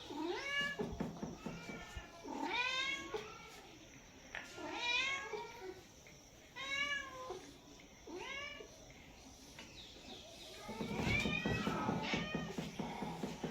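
Cats meowing: a string of separate drawn-out meows, roughly one every two seconds, then a louder stretch of overlapping calls near the end.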